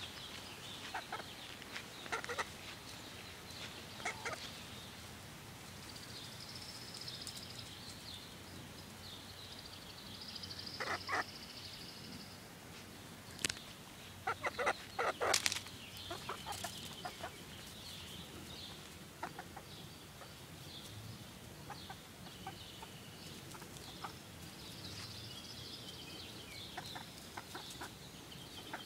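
Hens clucking off and on in short calls, busiest and loudest about halfway through, over a steady high-pitched chirring in the background.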